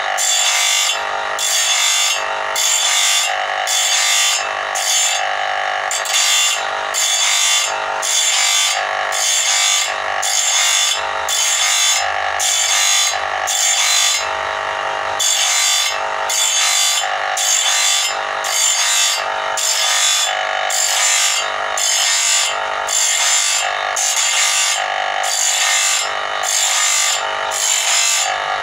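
Electric bench grinder's abrasive wheel grinding the teeth of a sawmill band saw blade to sharpen it, in repeated short strokes a little more than once a second over the steady hum of the motor.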